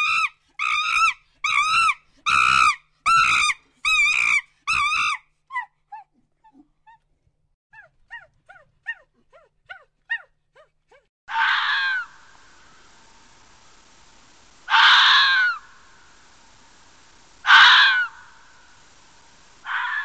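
Animal calls: a fast run of about eight evenly spaced pitched calls, then fainter short calls falling in pitch, then four longer calls about three seconds apart over a faint steady hiss.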